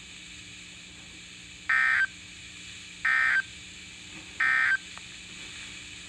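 Three short bursts of SAME digital data tones from a NOAA Weather Radio broadcast, played through a First Alert weather radio's speaker, each about a third of a second long and about a second and a third apart: the end-of-message code that closes the warning.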